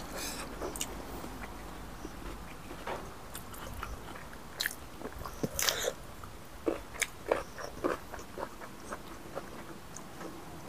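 Close-up eating sounds: people chewing and biting food, with scattered short crunches, smacks and clicks.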